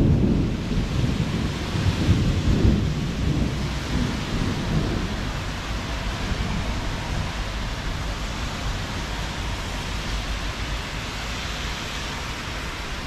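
Thunder rumbling in waves, loudest at the very start and dying away over about five seconds, over the steady hiss of rain.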